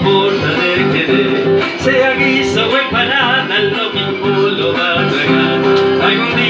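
Live acoustic guitar playing the instrumental break between verses of a folk song.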